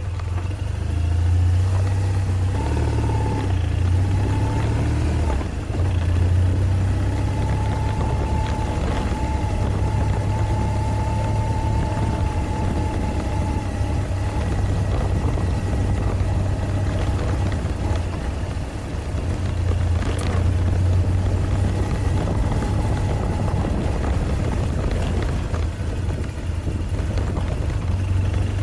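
2005 BMW R1200GS's air/oil-cooled flat-twin engine running at low road speed, a steady low engine note that eases off briefly a couple of times.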